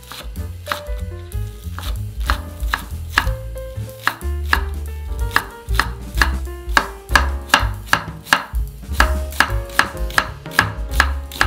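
Chef's knife chopping large green onion and then slicing an onion on a wooden cutting board: a steady run of sharp knocks against the board, about three a second, closer together in the second half.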